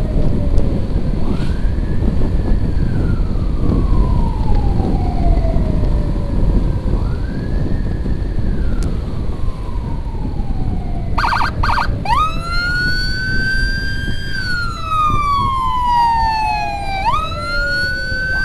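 Emergency siren wailing in repeated sweeps, each a quick rise followed by a long slow fall, faint at first. About eleven seconds in, a much louder siren starts with a rapid stuttering burst and then wails in the same sweep over the steady rumble of a moving motorcycle and the wind.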